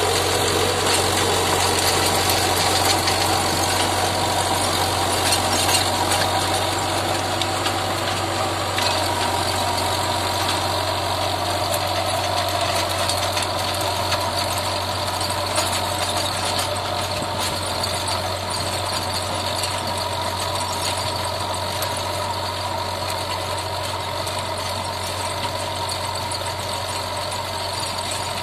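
Mahindra Yuvo tractor engine running steadily under load while it drives a 7-foot rotavator through hard soil, growing slowly fainter as the tractor moves away.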